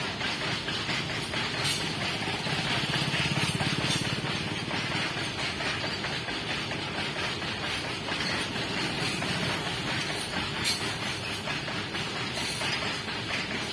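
Loaded BOXN open freight wagons rolling past on the track, a steady rumble and hiss with a few faint clicks.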